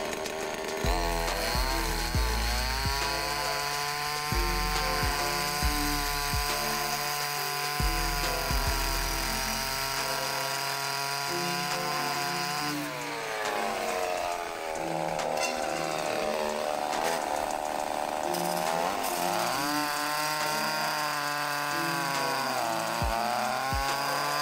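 A 2.5 HP two-stroke chainsaw engine drives a geared-down abrasive cut-off disc through a steel post, running at high revs. Its pitch dips and climbs again a few times in the second half. Background music with a bass line plays underneath.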